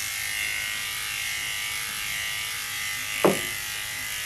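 Electric dog grooming clipper running with a steady high hum as it trims a toy poodle's coat; a short thump about three seconds in.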